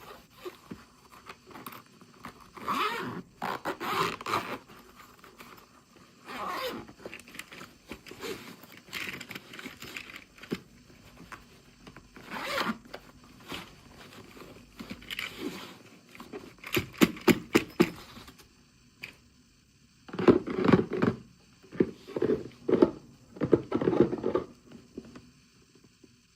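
Hands opening toy packaging: plastic and cardboard scraping and tearing in short irregular strokes, with a quick run of sharp clicks about two-thirds of the way through and heavier, duller rustling near the end.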